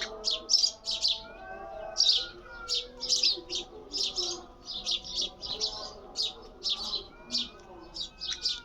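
A sparrow chirping repeatedly: short, high chirps coming about two to three times a second, with little pause.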